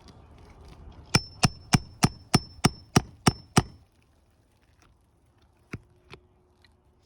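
Hammer striking a steel nail pull nine times in quick succession, about three blows a second, each with a high metallic ring, driving it under a roofing nail in an asphalt shingle to pull the nail. Two lighter knocks follow near the end.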